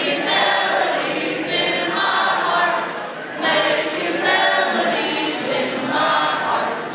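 A group of young voices, mostly female, singing together in unison in phrases, with short breaks between lines.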